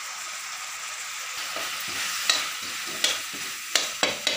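Onions, garlic and tomatoes sizzling in oil in an aluminium kadai as spice powders are stirred in. In the second half a metal spatula knocks and scrapes against the pan about five times.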